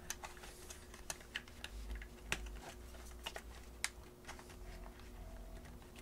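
Fingers pressing and prying at the plastic trim bezel and its retaining tab on the back of a GT350 steering wheel: faint, irregular small clicks and taps of plastic.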